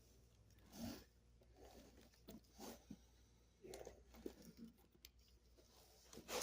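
Near silence with faint paper rustles and light taps as comic books are handled and shuffled between stacks.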